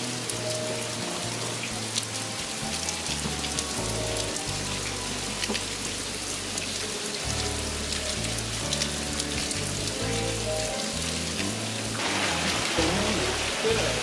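Steady rain falling, with many individual drop hits, over soft background music with a slow bass line.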